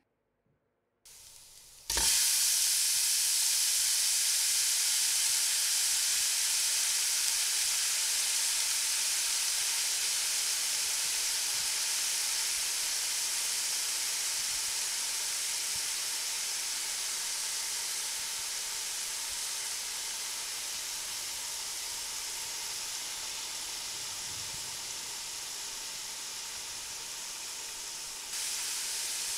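Chopped vegetables sizzling in hot oil in a nonstick frying pan: a steady hiss that starts suddenly about two seconds in and slowly fades.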